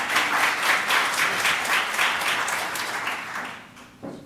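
Audience applauding, a dense spell of clapping that dies away about three and a half seconds in.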